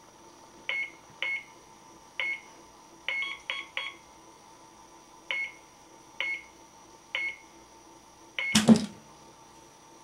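Microwave oven keypad beeping as its buttons are pressed: about eleven short, high beeps at uneven intervals. Near the end comes a last beep followed by a loud clunk as the oven starts up.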